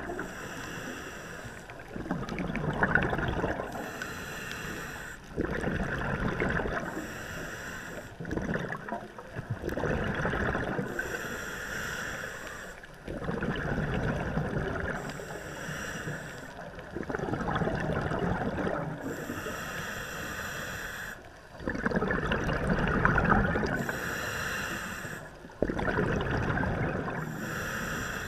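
Scuba regulator breathing underwater: a hiss from the regulator alternates with bursts of exhaled bubbles, in a steady rhythm of about one breath every four seconds.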